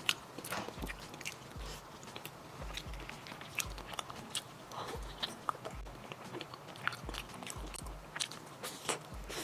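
Close-miked eating sounds: biting into a chocolate-coated ice cream bar, the hard chocolate shell crackling, with wet chewing and mouth clicks.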